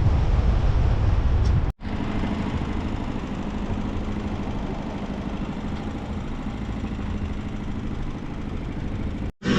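Wind buffeting the microphone over rushing water for about the first two seconds, then, after a cut, a sailboat's engine running steadily with an even hum.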